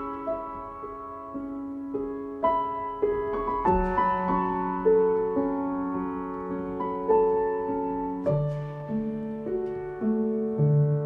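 Background piano music: slow, soft chords and melody notes, each struck and left to ring.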